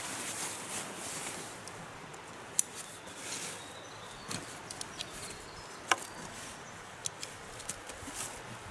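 Footsteps through the woods: rustling of brush and scattered sharp snaps of twigs, two of them louder, about two and a half and six seconds in.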